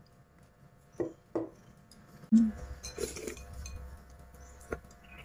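Chopsticks and porcelain bowls clinking while people eat: a few scattered clinks and knocks against bowls and a plate, the loudest a short low knock about two and a half seconds in.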